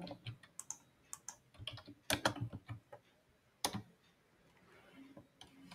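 Scattered light clicks of a computer keyboard and mouse, with a quick cluster about two seconds in and the sharpest single click about three and a half seconds in.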